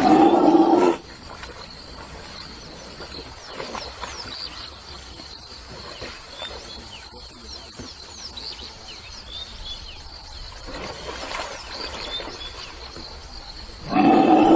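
Lion growling: two loud growls about a second long, one at the start and one near the end, with fainter growls between, over a steady background hiss.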